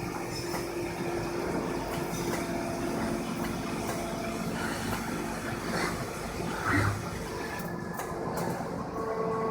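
Automatic ultrasonic plastic-welding machine running, with steady mechanical clatter and a louder short burst about seven seconds in.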